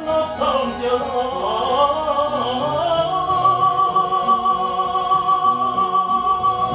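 Operatic tenor singing a run of quick notes, then holding one long note with vibrato from about three seconds in, over harpsichord accompaniment.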